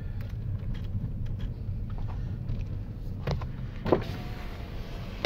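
Car engine idling, a low steady rumble heard from inside the car, with a few faint clicks and one short, sharper sound about four seconds in.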